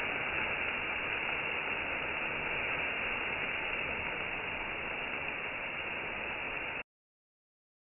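Meat sizzling on a gas grill over open flames, a steady hiss that cuts off abruptly about seven seconds in.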